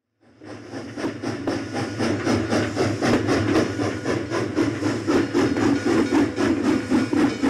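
Steam train running, with a steady rhythmic chuffing that fades in just after the start.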